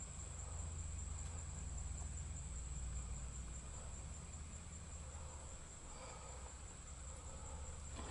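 Quiet room tone: a low steady rumble with a thin, steady high-pitched whine, and faint light shuffling about six seconds in.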